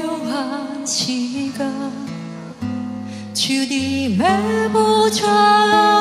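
A woman singing a slow Korean worship song into a microphone over instrumental backing, with vibrato on her held notes.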